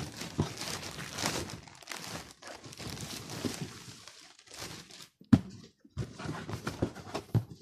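Plastic courier mailer bag crinkling and rustling as a cardboard shoebox is pulled out of it, with one sharp knock a little past five seconds in.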